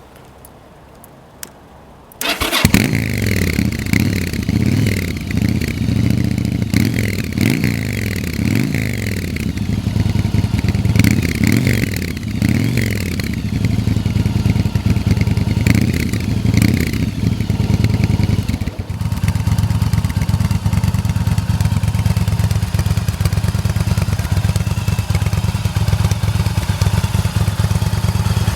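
Yamaha BT1100 Bulldog's air-cooled V-twin through an aftermarket BOS exhaust, starting up about two seconds in after a few faint clicks. It is then blipped again and again, the revs rising and falling, before settling into a steady idle about two thirds of the way through.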